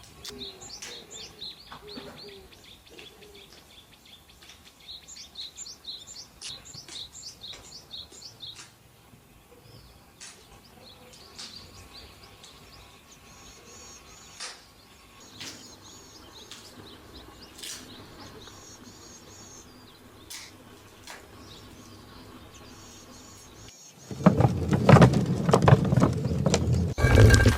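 Small birds chirping and tweeting at a low level, with a few scattered clicks. Near the end a much louder, dense burst of sound starts suddenly.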